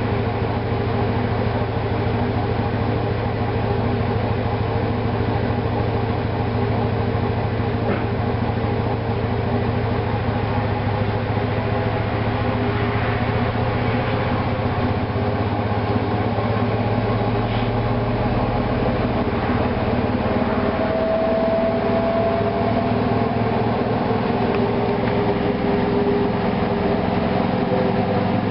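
Hoover washing machine running through its cool-down, drain and spin stages after the main wash: a steady mechanical hum, with a higher motor tone that rises slightly about two-thirds of the way in.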